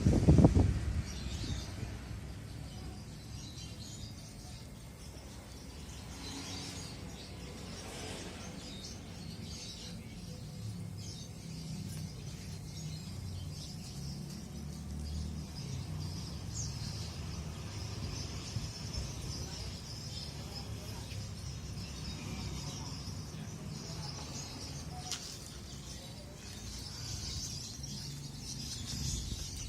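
Birds chirping faintly in the background over a steady low outdoor rumble, with a brief loud low rumble right at the start.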